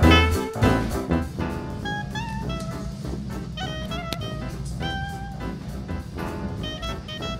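Background music: a melody of held and sliding pitched notes over a steady low accompaniment, loudest in the first second.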